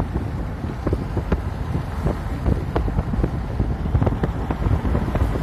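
A car in motion on a wet road, heard from inside: a steady low rumble of tyres and engine with a hiss of road noise. It is dotted with irregular light knocks and ticks.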